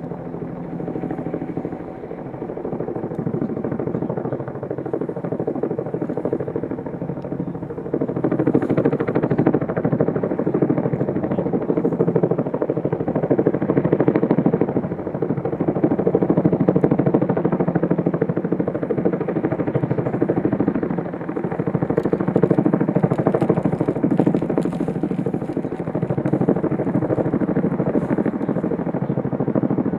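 Helicopter hovering with a long line hanging below it: steady rotor and engine noise that grows louder about eight seconds in.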